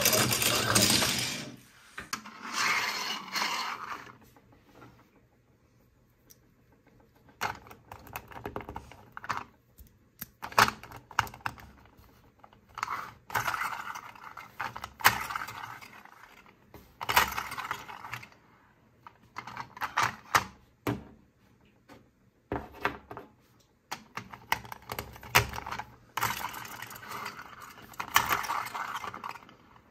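Hard plastic toy pieces being handled: irregular clicks, taps and light rattles as toy figures are pushed into and moved around on a plastic playset base.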